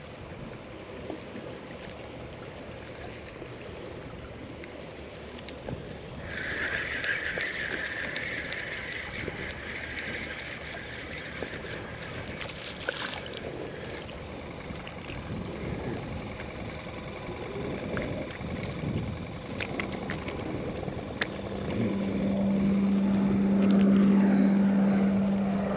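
Wind and water noise around a small fishing boat while a spinning reel is cranked in. After about twenty seconds a steady low motor hum comes in and becomes the loudest sound.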